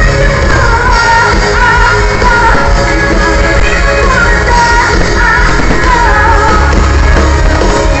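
Live pop-rock band playing through a concert PA with a female lead singer, heavy bass under the sung melody, heard from among the crowd.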